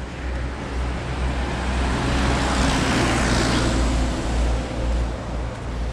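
A road vehicle passing by, its noise swelling to a peak about halfway through and then fading, over a steady low rumble.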